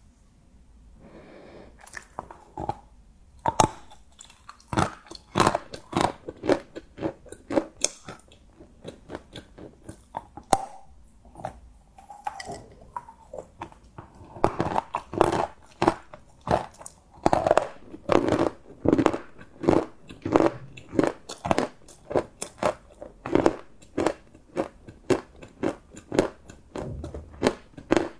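Close-up crunching and chewing of crunchy chocolate, a steady run of sharp bites and crunches at roughly two a second, which grows louder and more frequent about halfway through.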